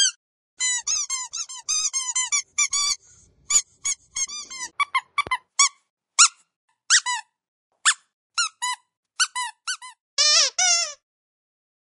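Squeaky dog toy squeezed again and again: short, high squeaks in quick irregular runs, each rising and falling in pitch, with two longer, lower squeaks near the end.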